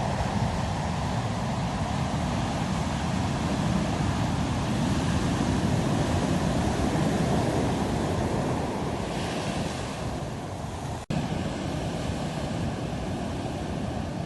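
Rough sea: waves surging and breaking in a continuous heavy wash, with wind buffeting the microphone. The sound drops out for an instant about eleven seconds in.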